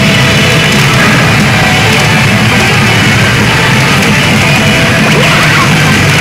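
Pachinko machine (Mizuho's Midori Don Hanabi DE Buongiorno) playing its loud game music steadily during a feature animation.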